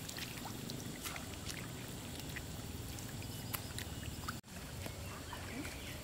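A small engine running steadily, a low rumble with scattered light clicks, briefly cut off about four and a half seconds in.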